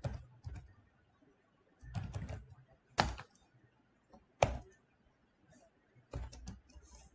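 Computer keyboard typing: short irregular runs of keystrokes with pauses between them.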